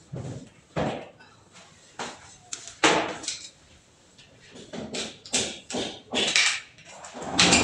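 Irregular knocks, clicks and scrapes of hands-on work with tools, about a dozen sharp sounds spaced unevenly and coming thicker near the end, in a bare room that gives them a short echo.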